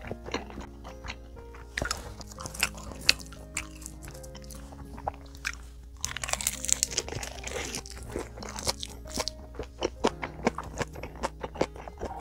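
Close-up chewing and crunching of a mouthful of mixed lunchbox rice with stir-fried anchovies, kimchi and soybeans, with many short crisp crackles and another spoonful taken about halfway through. Soft background music plays under it.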